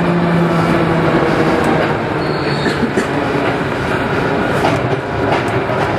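MP05 rubber-tyred Paris Métro train running through a tunnel, heard from inside the front car. A steady rolling rumble carries a low motor hum that fades about a second in, with a few light clicks.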